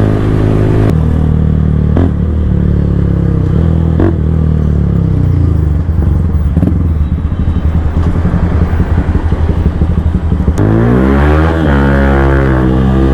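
Bajaj Pulsar N160's single-cylinder engine through a full-system exhaust, running at high revs with short breaks in the note. The revs then fall off into a choppy, uneven burble on the overrun. About ten and a half seconds in, the throttle opens again and the revs climb quickly.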